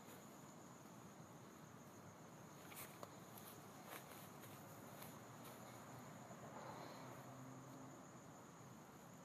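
Near silence: a faint steady hiss with a thin, continuous high-pitched tone, and a few faint ticks about three to four seconds in.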